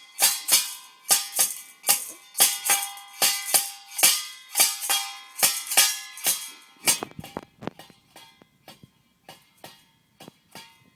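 Jingling rattle shaken in quick, uneven strokes, about two or three a second, each with a short bright ring. About seven seconds in the strokes drop to faint, scattered shakes.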